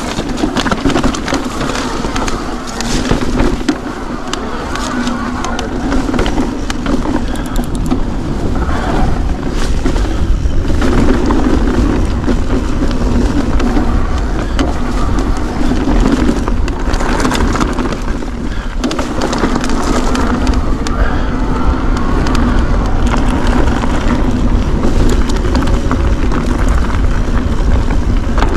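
Mountain bike riding over a rough stony single-track trail: continuous tyre and trail noise with a low rumble and many small clicks and knocks from loose stones.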